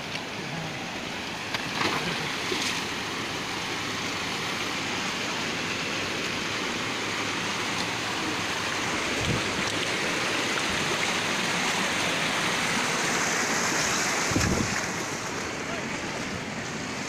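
Steady rush and splash of a small stream cascading over rocks, louder for a few seconds about two-thirds through, with a few short knocks.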